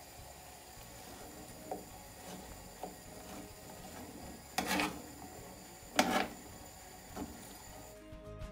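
Metal tongs turning green beans in a nonstick frying pan: light clicks and scrapes against the pan, with two sharper knocks about a second apart midway, over a faint steady hiss.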